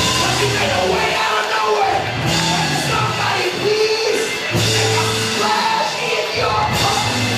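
Loud live church music with held bass notes, and voices raised over it.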